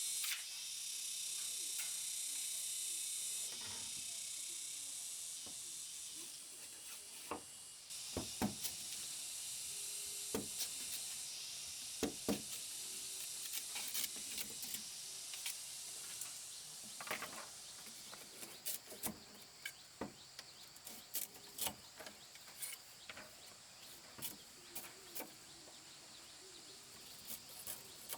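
A steady high insect drone hissing over the forest, with many short sharp knocks and clicks scattered through it, more frequent in the second half.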